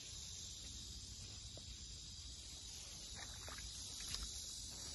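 Faint steady chirring of insects in a field, with a low wind rumble on the microphone and a few soft rustles of chili-plant leaves about three seconds in.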